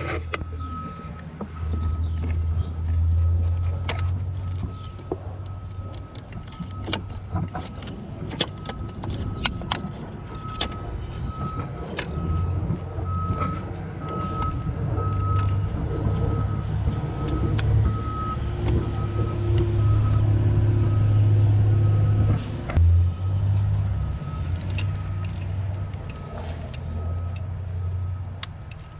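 Scattered sharp clicks and clinks of hand tools on metal, most of them in the first third, over a steady low rumble that swells and fades.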